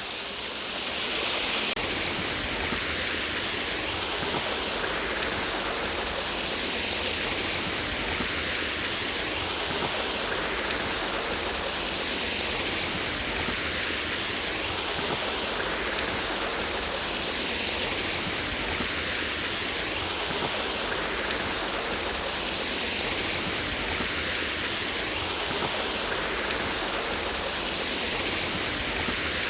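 Small woodland waterfall pouring into a stream: a steady rush of falling water.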